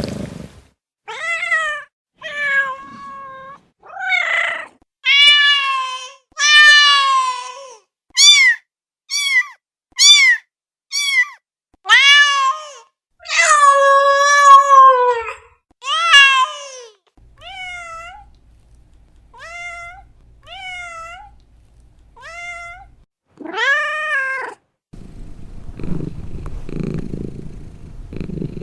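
Cats meowing over and over, about twenty separate meows of varied length and pitch, some short and chirpy and some drawn out, the ones after the middle fainter. Near the end the meowing stops and a cat starts purring, a low steady rumble.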